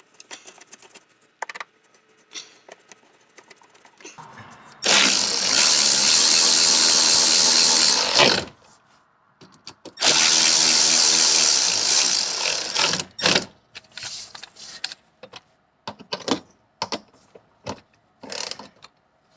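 Cordless Milwaukee M12 impact driver running in two bursts of about three seconds each, driving in mounting screws. Light clicks of handling between and after the bursts.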